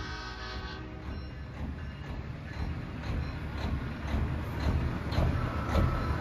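A big diesel semi-truck approaches, its engine rumble growing steadily louder, with a regular pulsing in the last couple of seconds. A multi-note horn chord cuts off about half a second in.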